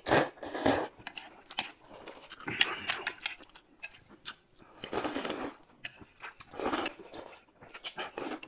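Noodles being slurped up in repeated quick slurps, with chewing between them.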